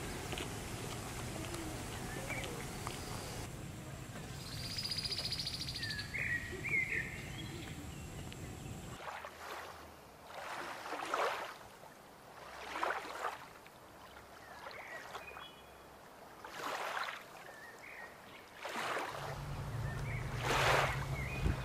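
Outdoor ambience: a steady low rumble with a few short bird chirps. About nine seconds in the rumble drops away, leaving soft swelling whooshes that come and go every two seconds or so. The low rumble returns near the end.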